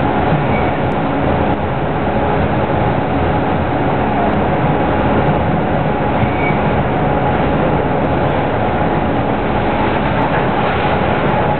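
Steady mechanical running noise of a CNC vertical machining center: a dense, even rumble with a few faint held tones and no distinct strikes or changes.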